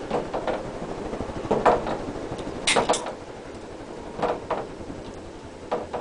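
Hunter R-52 ceiling fan running, a steady hum with irregular clicks and knocks, roughly one every second or so.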